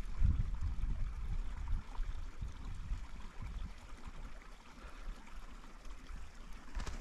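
Snow-covered mountain creek running steadily below, with a low rumble over the first two seconds.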